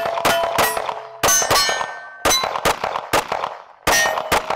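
A rapid string of about a dozen shots from a 9mm Live Free Armory AMP pistol, two to three a second. Hit steel target plates ring after the shots.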